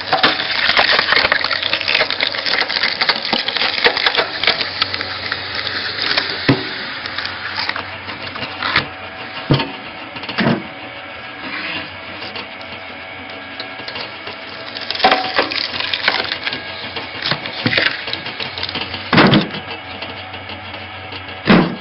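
Screw cone log splitter's spinning threaded cone boring into a log: wood crackling and tearing densely at first, then several loud sharp cracks as the log splits apart, over the steady hum of the machine.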